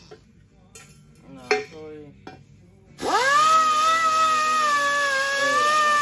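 Hose-fed pneumatic grinder with a round pad: a brief blip about one and a half seconds in, then about three seconds in it spins up fast to a loud, steady high whine whose pitch wavers slightly as it is pressed against the exhaust flange.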